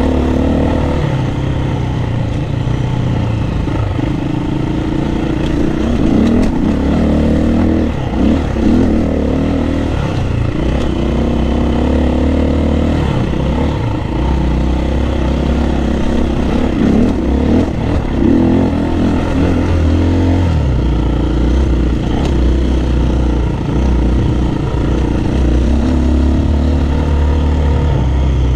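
Dirt bike engine running under way, its pitch stepping up and down with the throttle and gears.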